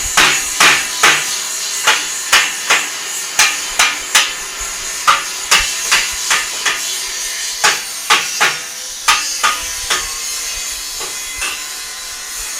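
Hammer striking metal in a workshop, ringing clangs about two a second in an uneven rhythm that stop about ten seconds in, over a steady high hiss.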